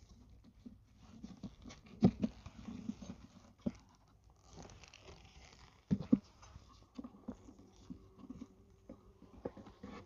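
Metal hive tool prising and knocking wooden frames loose in a small wooden beehive nuc: scattered wooden clicks and scrapes, the sharpest about two and six seconds in, as the frames are freed and one is lifted out.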